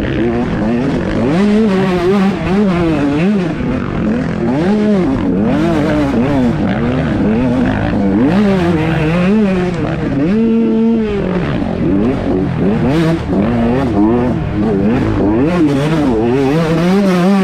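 Several 125cc two-stroke motocross bikes racing, their engines revving up and dropping back over and over as the riders work throttle and gears, with overlapping engine notes. About ten seconds in, one engine holds a steady note for about a second.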